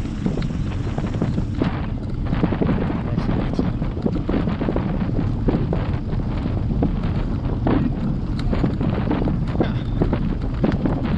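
Wind buffeting the microphone of a handlebar-mounted GoPro on a moving bicycle, a steady low rush with irregular gusty thumps, over the rumble of tyres on a coarse chip-seal road.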